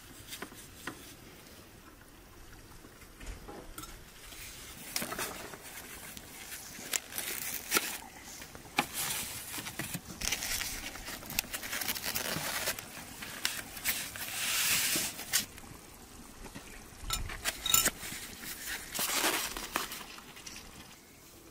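Styrofoam takeaway clamshell boxes being handled and stacked, their lids pressed shut: irregular bursts of rustling and scraping with a few sharp clicks.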